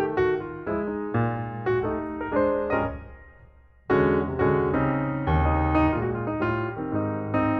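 Background piano music, a slow run of single notes and chords. It fades almost to nothing about three seconds in, then starts again abruptly about a second later.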